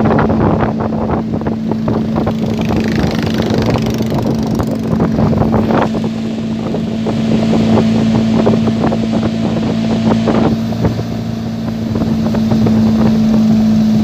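Small motorboat's engine running at a steady speed, a constant drone underway, with wind buffeting the microphone.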